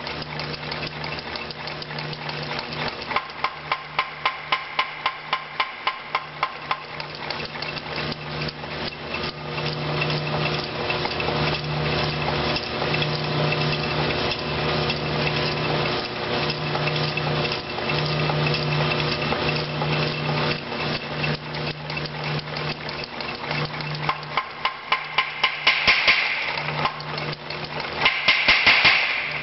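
Rebuilt old-style 25 lb Little Giant mechanical power hammer running smoothly and quietly, all its moving parts freshly rebuilt or replaced. A fast, even rhythm of ram strokes carries on throughout, with spells of louder, evenly spaced blows, about four a second, a few seconds in and again near the end.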